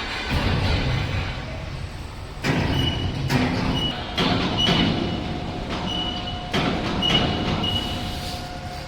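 Electric welding rotator running under test: a steady mechanical rumble with several sharp metallic knocks and a high squeal that comes and goes.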